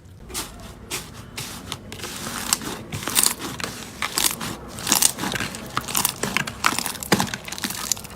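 Slime being squeezed and pressed by hand, giving a dense run of crackles and pops that grows busier and louder about two seconds in.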